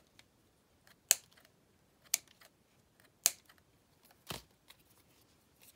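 Craft supplies being handled on a desk: three sharp clicks about a second apart, then a duller knock and a few faint ticks.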